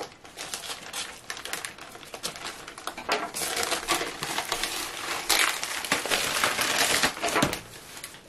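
A plastic mailer bag and the bubble wrap under it crinkling and rustling in irregular bursts as the mailer is pulled open and slid off a long boxed package, busiest in the middle of the stretch.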